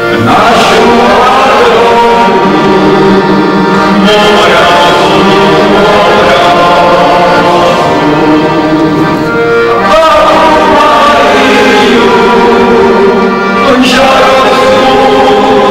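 Heligonka, a Czech diatonic button accordion, playing a lively folk tune with full chords and bass, the player's voice singing along.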